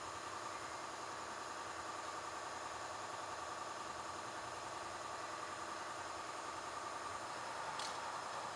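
Background music: a steady, droning track with no clear beat.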